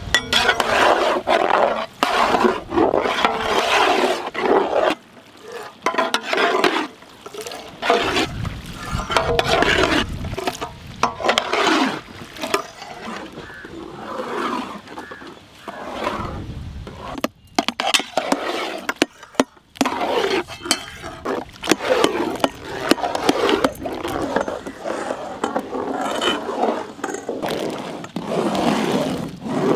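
Mass of cut dragon fruit being stirred with long paddles in a large metal pot over a wood fire, the steaming pulp sloshing and bubbling in loud, irregular bursts.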